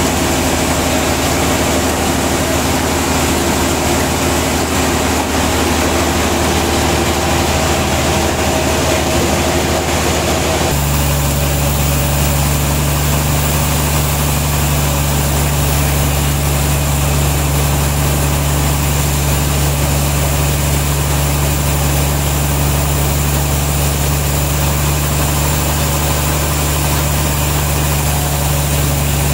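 Sawmill machinery running with a steady, even hum that holds one pitch. About eleven seconds in it changes abruptly to a lower, heavier hum.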